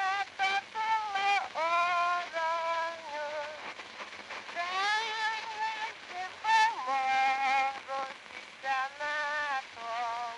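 A woman singing a Hungarian folk song unaccompanied, in short phrases, her pitch sliding and bending between notes.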